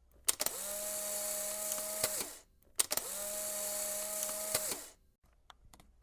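A small electric motor switched on twice, each time with a click: it spins up to a steady whirring hum for about two seconds and winds down. A few light clicks follow near the end.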